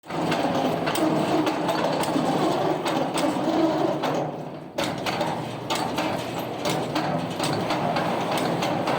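Steady mechanical clatter of heavy machinery, full of small knocks and clicks, with a brief dip about four and a half seconds in.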